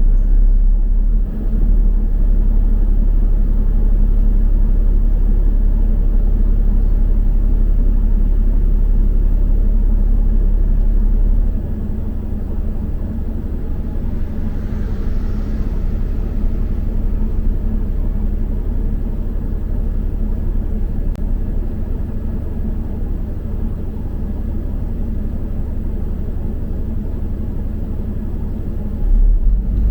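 Steady low rumble of a London double-decker bus on the move. About a third of the way in, the deepest part of the rumble drops away and the sound gets a little quieter; it swells back just before the end.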